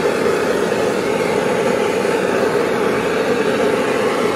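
Handheld butane gas torch burning with a steady, loud rushing flame as it singes the skin of a plucked rooster.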